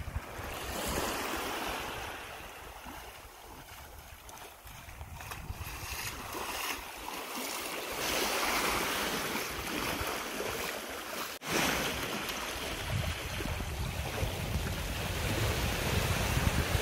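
Small waves washing in and out on a sandy shore, a rising and falling hiss of surf. After a cut about two-thirds of the way through, wind rumbles on the microphone under the surf.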